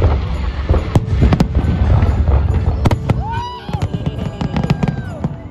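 Aerial fireworks shells bursting: a rapid string of sharp bangs and cracks over a deep rumble, thickest in the second half.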